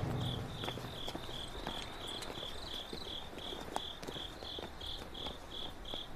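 Crickets chirping steadily, evenly spaced chirps about three a second, with faint scattered clicks underneath.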